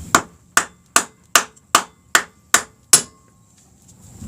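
A hammer striking a block of wood held against a Suzuki Hayabusa's rear axle shaft to drive the axle out: eight even blows, about two and a half a second, stopping about three seconds in.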